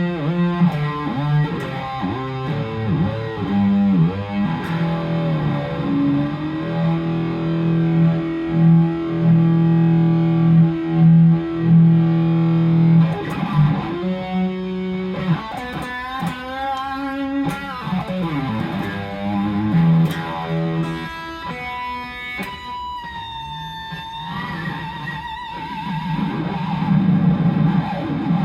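Overdriven electric guitar, an EVH Wolfgang Standard on its bridge pickup played through an EVH 5150 40-watt combo amp. It plays held chords and sustained notes, then lead lines with wide bends, wavering vibrato and falling pitch glides.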